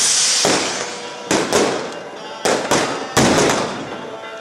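Fireworks and firecrackers going off: a fizzing hiss at the start, then three pairs of sharp bangs, each echoing briefly.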